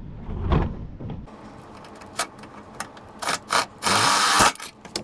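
10mm socket wrench on a universal joint working a bumper bolt loose: scattered metallic clicks and knocks, then a longer rasping run of ratchet clicks lasting over half a second near the end.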